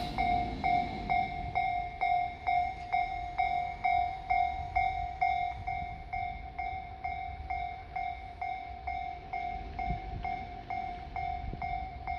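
Japanese railway level-crossing alarm ringing its electronic bell in a steady, quick, even rhythm of about two strokes a second, over a low rumble.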